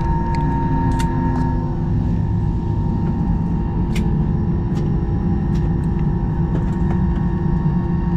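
Steady cabin noise of an Airbus A320-family airliner taxiing on the ground: the engines running at idle give a low rumble with several steady tones. A few faint clicks sound in the cabin.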